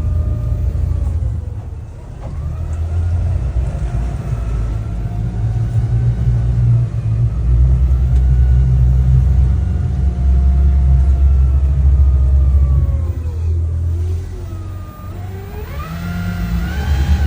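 Yamaha outboard engines running with the boat under way: a low rumble that swells and eases with the throttle, and a whine that glides up and down in pitch, rising again near the end.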